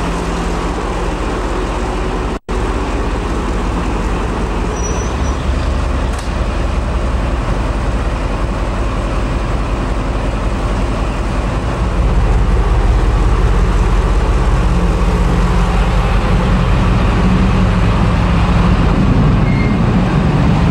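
Diesel locomotive engine running steadily at idle, a continuous low drone. It cuts out for an instant about two seconds in and grows louder and deeper about halfway through.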